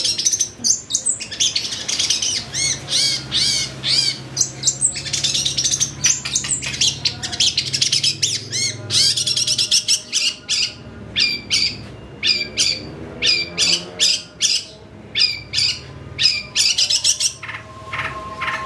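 Long-tailed shrike (cendet) singing in full voice: a fast, near-continuous stream of short, harsh notes mixed with mimicked calls of other birds.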